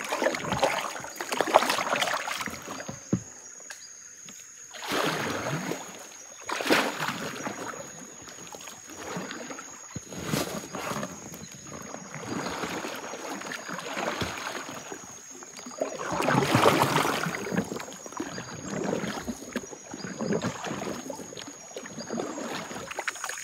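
Short bouts of water splashing and sloshing every few seconds, over a steady high-pitched insect trill.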